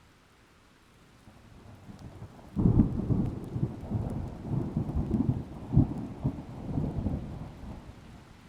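A thunderclap. A low rumble builds, then breaks suddenly about two and a half seconds in into loud, rolling thunder with several rumbling peaks, which fades away near the end.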